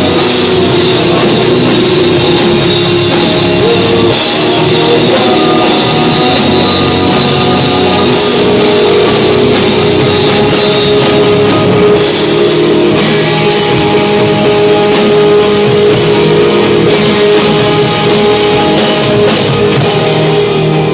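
Live rock band playing loudly, with a drum kit and guitar.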